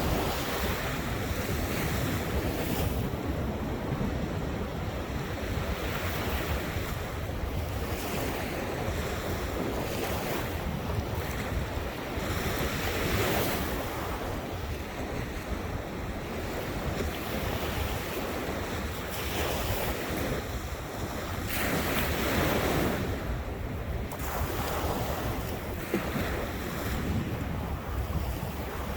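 Ocean surf breaking and washing ashore, surging every few seconds, with wind rumbling on the microphone.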